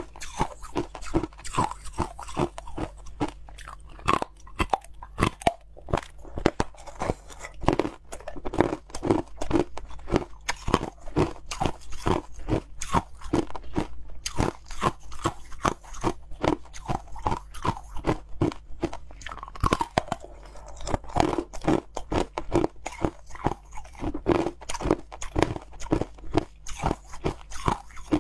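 Close-miked crunching of fluffy white ice being bitten and chewed: a dense, irregular run of crisp crunches, several a second, throughout.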